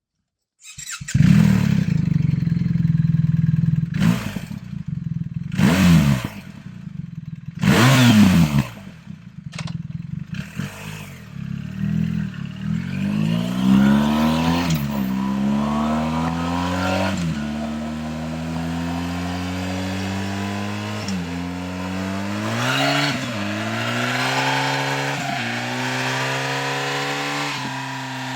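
BMW R 1300 GS boxer-twin engine through a REMUS aftermarket exhaust: it starts about a second in and idles, is blipped three times in quick succession, then pulls up through the gears, its pitch rising and dropping back at each of several shifts.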